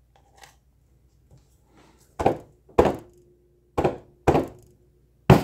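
Hammer striking a small stretched canvas coated in wet acrylic paint, five dull thunks about half a second to a second apart, starting about two seconds in, with one blow landing on the canvas frame.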